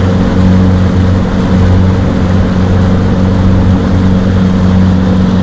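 Small motorboat's engine running steadily under way, a constant low hum over a rush of noise.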